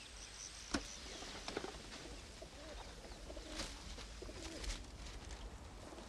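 Faint bird calls in quiet ambience, with a few soft clicks.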